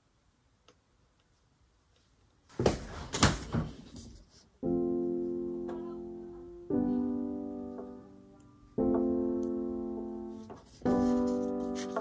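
Soft background piano music that starts about halfway in: slow held chords struck about every two seconds, each left to ring and fade. Just before the music, a loud noisy burst of handling sounds lasting about two seconds.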